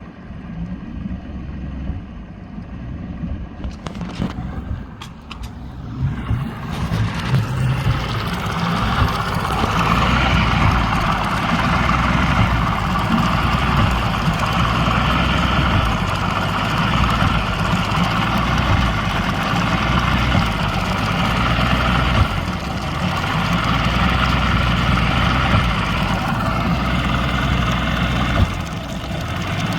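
Mariner 60 hp outboard motor running, quieter at first and louder from about a quarter of the way in, its sound dipping briefly twice in the second half. The engine appears to be suffering a lean sneeze: it stumbles and spits back when starved of fuel, and pumping the primer bulb made the sneeze go away.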